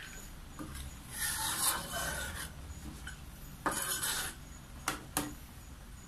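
Metal ladle scraping and stirring through chicken curry in a metal wok, in two longer scrapes, followed by two short knocks of the ladle against the pan.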